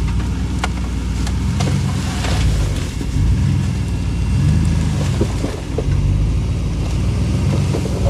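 Ram pickup's Hemi V8 running at low speed as the truck creeps forward, its rumble rising and falling with the throttle. A few sharp clicks and snaps sound over it in the first few seconds.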